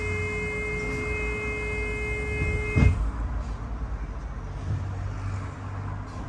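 Inside a moving bus: a steady electronic tone sounds for about three seconds and stops with a heavy thud, over the low rumble of the bus.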